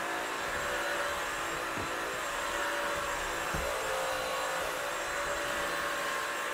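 Bissell CrossWave Pet Pro wet-dry vacuum running steadily in dry-vacuum mode, a constant motor whine with hiss, as it is pushed over hardwood floor picking up dog hair. Two faint knocks come as the head is moved about.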